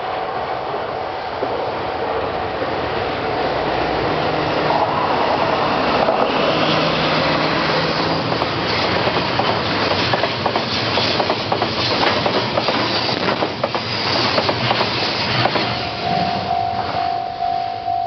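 JR Freight train with container wagons approaching and passing close by: a rumble that grows louder from about four seconds in, then rapid wheel clicks over the rail joints as the wagons go past. A level-crossing warning bell rings steadily at the start and can be heard again near the end as the train noise thins.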